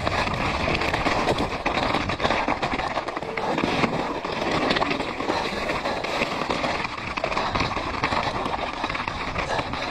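Mountain bike ridden fast over loose rock scree: tyres crunching and stones clattering in a dense, continuous crackle.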